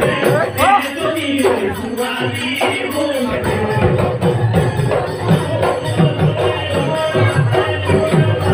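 Bihu folk music with a steady high jingling rhythm; deep drum beats come in strongly about three seconds in, at roughly two a second.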